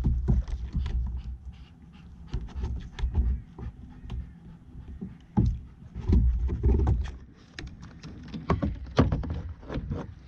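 Kayak sounds on the water: paddle splashes and irregular clicks and knocks against the hull, with bursts of low rumbling, loudest near the start, in the middle and toward the end.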